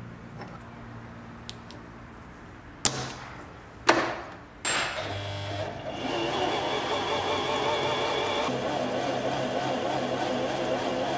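A few sharp clicks as a plastic bobbin is set on the bobbin winder of an electric home sewing machine. Then, from about five seconds in, the machine's motor runs steadily, driving the winder to fill the bobbin with thread.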